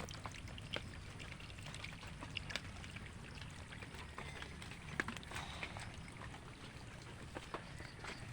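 Water pouring and trickling, with scattered small splashes and drips.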